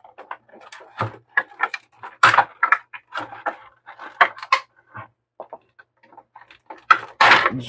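Stiff clear plastic packaging crackling and creaking in irregular sharp snaps as it is cut and pulled apart with a knife, with a louder crackle near the end.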